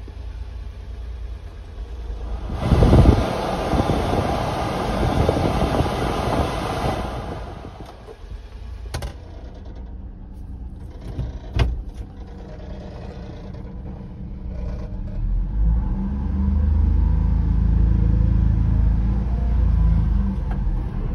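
Sounds of a 1997 Honda Acty mini truck. A loud rushing noise lasts several seconds, a couple of sharp clicks follow, and a steady low hum grows louder near the end.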